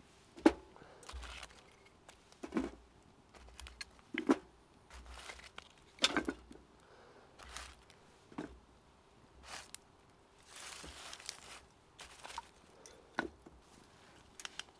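Split firewood logs being set down one after another on the metal top of a wood stove and on the sticks already lying there: about nine wooden knocks and clunks, one every second or two, with rustling between them.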